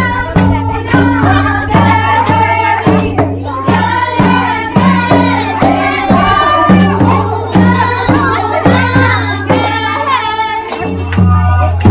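Group singing a Kumaoni Holi folk song, with percussion strokes keeping a steady beat of about two a second.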